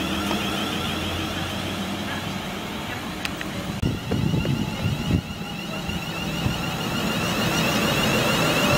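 Class 350 electric multiple units running through a station: a steady running noise with a high electric whine, growing louder in the last few seconds as a train draws alongside. Low wind buffeting on the microphone from about four to five seconds in.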